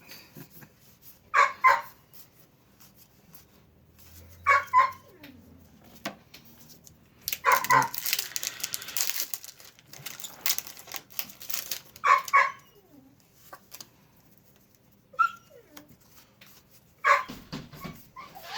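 A dog barking, mostly in quick pairs, about every three seconds. A stretch of rustling comes between its barks midway through.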